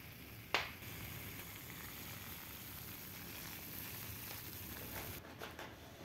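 Tea kettle on a wood stove at the boil, steam hissing steadily, with one sharp click about half a second in. The hiss drops away near the end, leaving a few faint clicks.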